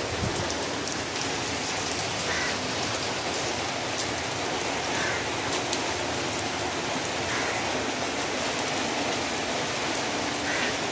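Steady rain falling on concrete and puddles: an even hiss with scattered sharper drop ticks.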